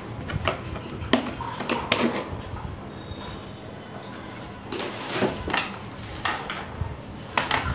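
Cardboard router box and paper being handled: a scattering of light knocks and scrapes with rustling, loudest about a second in, at two seconds and near the end.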